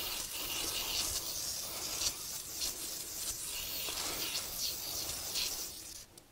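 Repeated scratchy strokes of a small brush scrubbing over wet sandpaper taped to a granite surface plate, readying the paper for lapping. The strokes fade out near the end.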